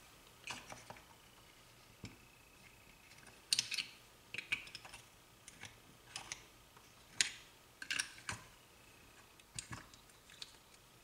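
Light, irregular clicks and scrapes of a small pick prying a tight plastic ring gear out of a starter motor's housing, about a dozen ticks spread unevenly.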